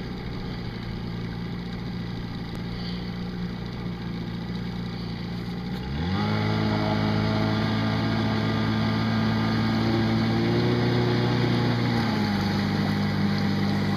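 Boat's outboard motor running steadily at low speed, then speeding up about six seconds in and holding at higher revs, with a brief further rise and easing back near the end.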